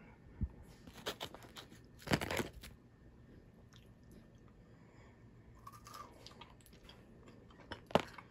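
Biting into and chewing a Kit Kat wafer bar with an orange Tootsie Fruit Chew: scattered crunchy crackles, the loudest crunch about two seconds in, and a sharp click near the end.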